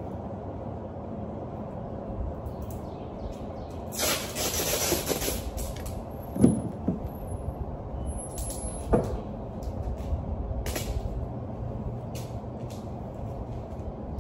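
Steady low rumble of a vehicle on the move, with a few sharp knocks and short bursts of hiss.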